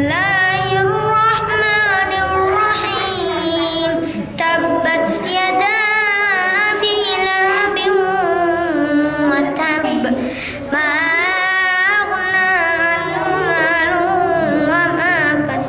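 A boy reciting the Qur'an in a melodic chant, drawing out long ornamented notes that waver up and down, with a short pause for breath about 4 seconds in and again about 10 seconds in.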